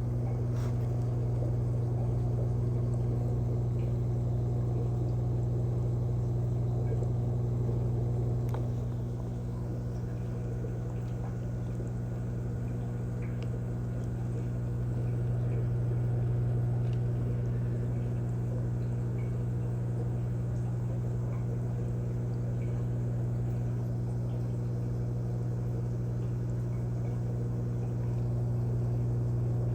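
Steady low electrical hum of running aquarium equipment, with a few faint ticks.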